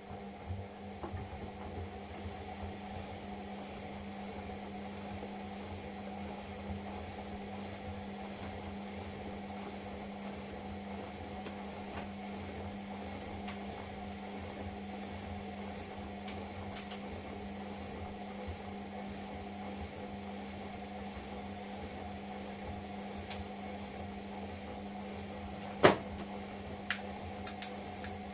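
Indesit washing machine running with a steady hum. Near the end there is a single sharp knock, followed by a few fainter clicks.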